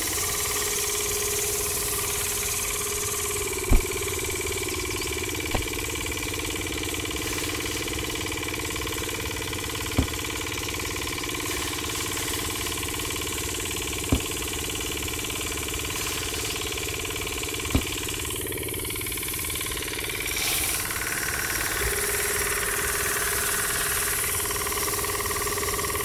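Miniature engine-driven chilli grinding mill running steadily with a fast, even pulsing as it grinds chillies into flakes. Five sharp clicks stand out, spread through the run.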